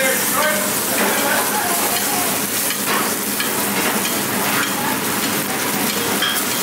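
Duck breast sizzling in its rendered fat in a steel frying pan, a steady hiss, with soft scrapes of a metal spoon basting it in the pan.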